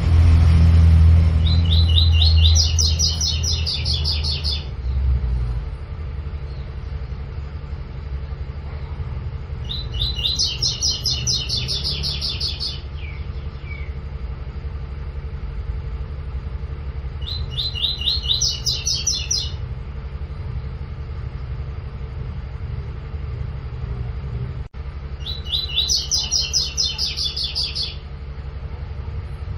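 Double-collared seedeater (coleiro) singing its 'tui tui' song: four phrases, each two to three seconds of rapid repeated high notes, coming about every eight seconds, over a steady low rumble.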